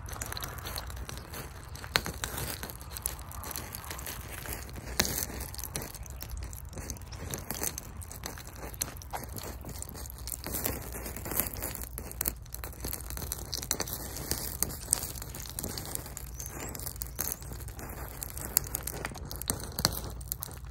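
Stale gasoline that has turned to a varnish-like liquid burning in a small metal cup: a steady crackling hiss with many sharp ticks, under a low rumble of wind on the microphone.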